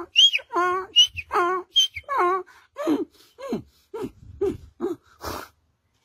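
A man imitating a donkey braying with his voice, hands cupped at his mouth: repeated hee-haw cycles, each a low held note followed by a short high squeak, winding down into a few falling groans and ending with a breathy puff about five seconds in.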